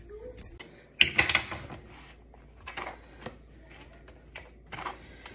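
Light clicks and knocks of kitchen handling over a glass baking dish: a quick cluster of sharp clicks about a second in, then scattered single taps.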